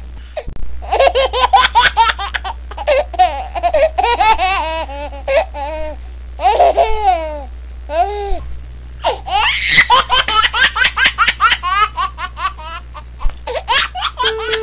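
Hearty, high-pitched laughter in long fits of quick ha-ha pulses, with short breaks between fits, over a steady low hum.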